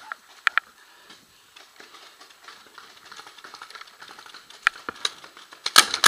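Paintball markers firing: a few scattered single shots, then a rapid string of shots near the end.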